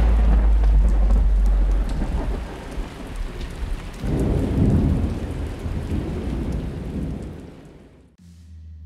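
Rain and thunder: a deep thunder rumble at the start and another rolling in about four seconds in, over a steady hiss of rain, fading out near the end.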